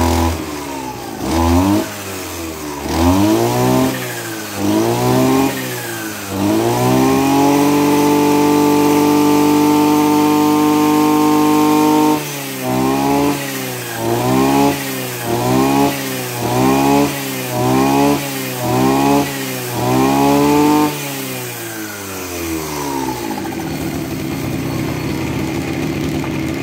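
Maruyama BCS32 32cc two-stroke brush cutter revving off load: about five quick throttle blips, then held at high revs for about five seconds, then about eight more quick blips before dropping back to a steady idle near the end.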